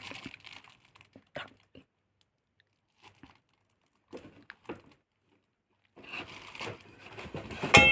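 Packaging crinkling and rustling in scattered short bursts as a delivered box is unpacked, with a busier, louder stretch of crinkling near the end.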